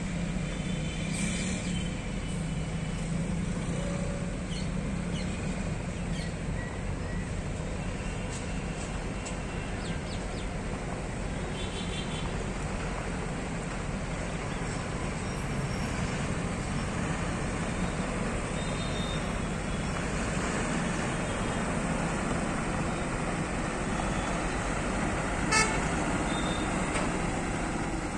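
Diesel engine of a six-wheel tipper truck running steadily at low revs as the truck moves slowly along a dirt road, with a single sharp click near the end.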